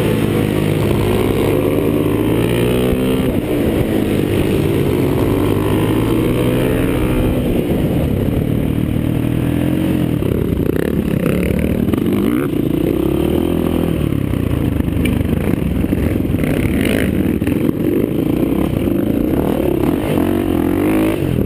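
KTM 525 single-cylinder four-stroke motorcycle engine under race load, close to the handlebar-mounted camera. It revs up and drops back repeatedly through gear changes and corners.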